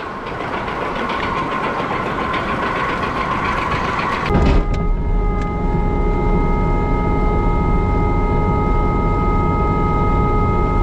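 Farm machinery running: a dense, rattling mechanical noise for about four seconds. It then changes abruptly to a steady low hum with several constant tones.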